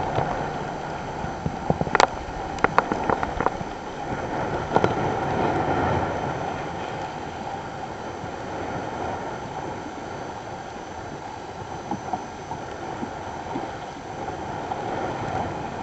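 Wind on the microphone and water rushing and splashing past a moving boat, with a cluster of sharp knocks in the first few seconds.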